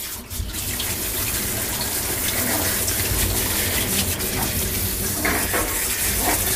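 Rinse water spraying steadily from a BatherBox bathing-system nozzle onto a small dog's wet coat in a grooming tub, the fresh-water rinse washing the shampoo out. The spray comes on just after the start and runs on as a steady hiss.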